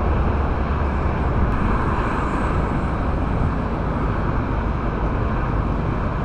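Steady rumble of a vehicle driving at road speed while towing a car on a strap: engine, tyre and wind noise picked up by a camera mounted on the outside at its rear.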